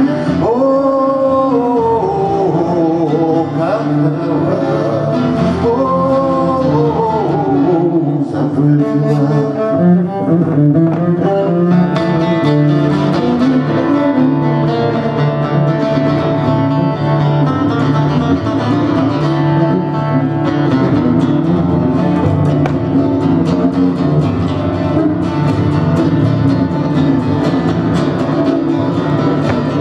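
Live acoustic guitar and bowed double bass playing together, with a man singing over the first ten seconds or so; after that the guitar and bass carry on without the voice.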